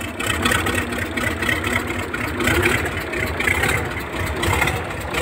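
YaMZ-238 V8 diesel engine running steadily, with a dense low pulsing beat.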